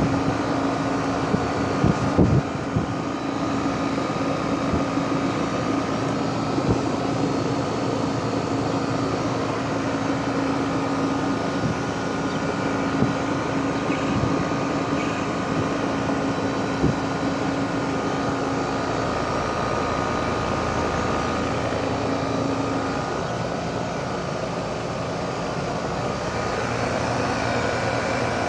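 2012 Rheem 4-ton heat pump running in cooling mode: the outdoor unit's fan blowing air, over a steady low hum from the running compressor. A couple of brief knocks sound about two seconds in.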